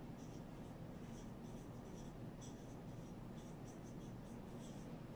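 Marker pen writing on a whiteboard: a quick string of faint, short, scratchy strokes.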